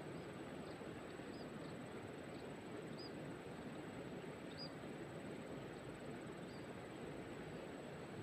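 Steady rushing of stream water at a waterfall, with short high chirps scattered through it about eight times.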